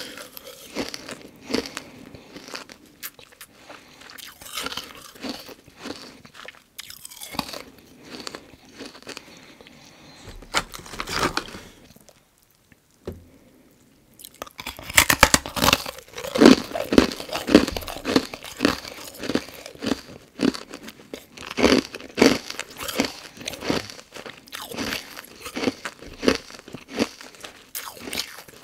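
Carbonated ice being bitten and chewed close to the microphone: loud, brittle crunches one after another. After a short pause near the middle, a fresh piece is bitten into and the crunching comes back louder and thicker.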